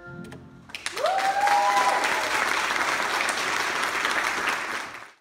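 Theatre audience applauding and cheering at the end of the song, with a high rising cheer about a second in. The last held orchestral chord dies away just before the applause starts, and the applause cuts off abruptly near the end.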